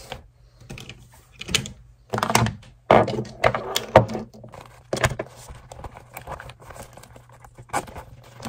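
A leather shoulder bag being handled and packed with small items on a wooden desk: irregular knocks, clicks and rustles as things are set down and slipped into the bag.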